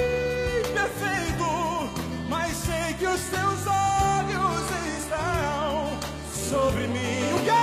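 Live gospel ballad: a male voice sings in Portuguese, holding notes with vibrato, over a band with keyboards, bass and drums.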